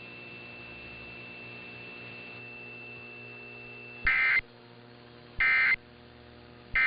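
Emergency Alert System end-of-message data tones: three short, identical, loud digital data bursts about 1.3 seconds apart. They play over a faint steady hum and a thin high whine that stops about four seconds in.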